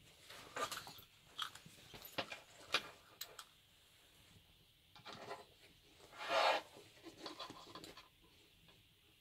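A rubber gas mask and a rubberised hood being handled and shifted on a bed: irregular rustling and rubbing with a few small clicks and knocks. The loudest swish comes about six and a half seconds in.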